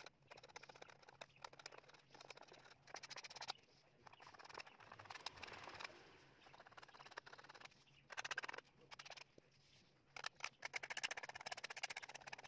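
Faint scraping of a small hand scraper blade across the bare wooden face of a table tennis blade in quick, short strokes, coming in bursts of a few seconds with brief pauses, cleaning the grime off the wood.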